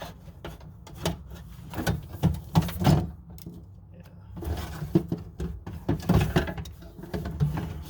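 Irregular knocks, clicks and short scrapes of a window regulator assembly being worked out of a door's inner panel, several sharper knocks coming in clusters.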